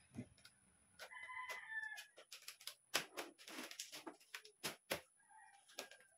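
Metal poles and plastic shelf panels of a shoe rack clicking and knocking as it is assembled, a quick string of sharp knocks in the second half. About a second in, a bird calls once for about a second.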